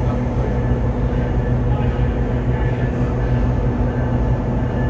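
Diesel locomotive engine running steadily with a deep, even hum that does not change in pitch.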